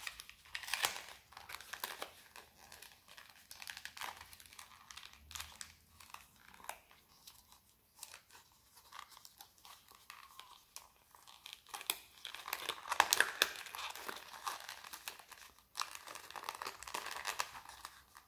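Plastic lure packaging crinkling and crackling as hands work it open, with tearing sounds; the crackles come in irregular bunches, loudest about two-thirds of the way through.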